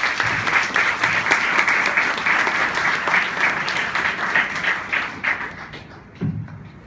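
Audience applause: many people clapping their hands. It fades out about five to six seconds in.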